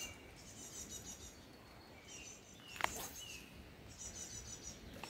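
Faint chirps and trills of small songbirds over quiet lakeside ambience, with one short sharp sound just before the three-second mark.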